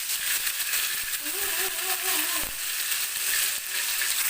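Ground spice paste frying in hot oil in a wok, a steady loud sizzle that began the moment the paste hit the oil.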